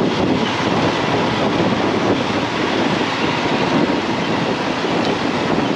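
Riding noise from a moving motorcycle on a steel truss bridge: a loud, steady rush of wind, engine and tyre noise with no single event standing out.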